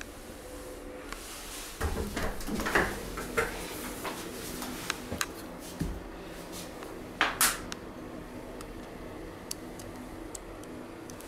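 A unit-bathroom door being opened and walked through: a cluster of clicks and knocks about two to three seconds in, a low thud near the middle and a brief scrape a little after, over a faint steady hum.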